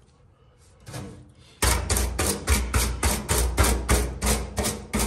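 Stiff-bristled brush scrubbing the dirty top of a rusty steel fuel tank in quick back-and-forth strokes, about four a second, starting about a second and a half in.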